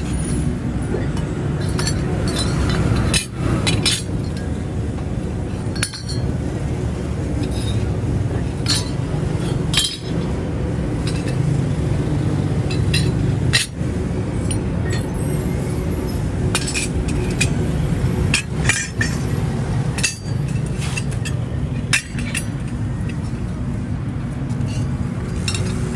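Metal water pump impellers clinking against one another as they are handled and sorted from a pile, in scattered irregular clinks over a steady low background rumble.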